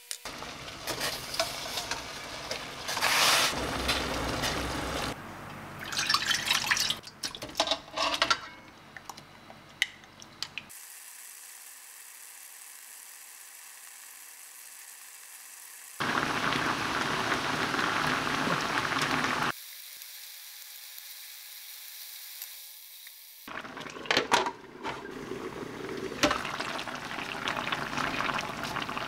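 Kitchen sounds in several short takes: a knife tapping and scraping as it trims carrot on a wooden cutting board, and braised chicken bubbling in its sauce in a frying pan, stirred with a spatula. Sharp clicks and knocks come in clusters in the first third and again near the end, with a steady simmering noise in the middle.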